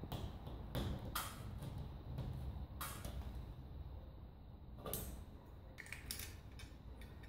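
A recessed ceiling downlight being worked out of its hole by hand: a handful of short clicks and knocks, a second or two apart, as the metal fitting comes free of the ceiling.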